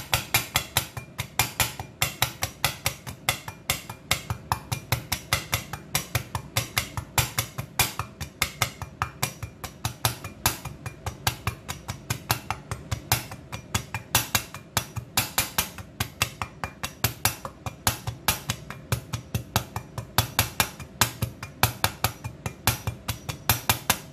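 Cleaver chopping ginger on a wooden cutting board: quick, even knocks of the blade on the board, about three or four a second, mincing the ginger fine.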